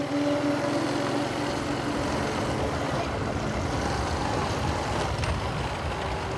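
Motorcycle engine running steadily under way, with a continuous rush of wind and road noise.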